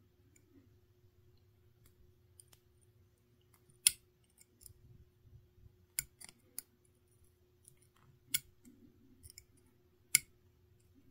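Knife blade tip scraping and picking corroded glue residue off a Rubycon Black Gate electrolytic capacitor's rubber end seal and leads. It makes scattered small scratches and ticks, with a few sharper clicks about two seconds apart.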